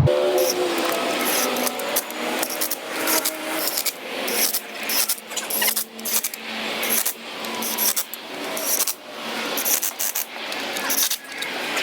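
Irregular metallic clicks, clinks and scrapes of bolts and hand tools being handled while the bolts of an engine cover are started by hand.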